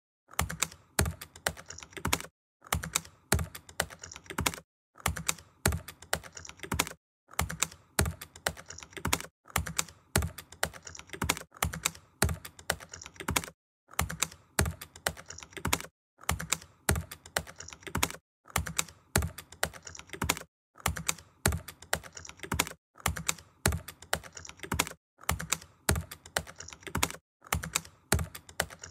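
Small chasing punch being tapped rapidly with a hammer against an embossed gold pendant piece set in pitch: quick light taps in runs of about two seconds, with brief pauses between runs.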